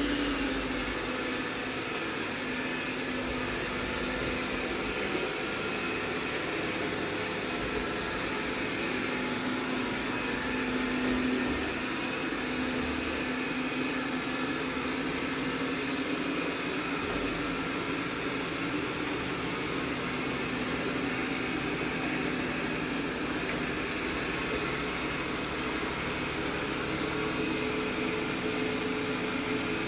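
Rowenta X-plorer Serie 60 robot vacuum running steadily: a continuous motor hum with an even fan hiss.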